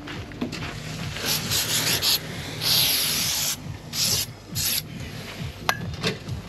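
Aerosol can of adhesive activator sprayed onto the glued joins of aluminium edging in several short hissing bursts, the longest lasting about a second near the middle. A single sharp click comes near the end.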